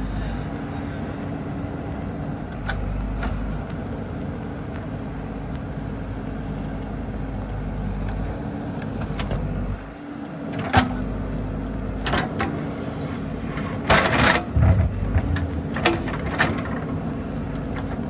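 JCB backhoe loader's diesel engine running steadily under hydraulic load as the backhoe digs, its note dipping briefly about ten seconds in. Several sharp knocks and a clatter follow as the bucket works the soil, the loudest about fourteen seconds in.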